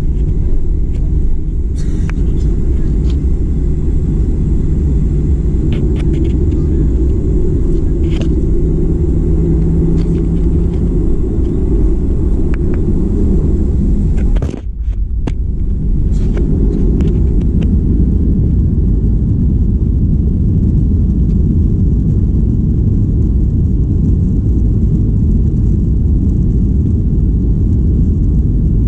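Inside the cabin of a Boeing 737-800: the steady, loud, deep rumble of the engines and airflow, with scattered light clicks and rattles. The sound drops out briefly about halfway through, then the rumble carries on.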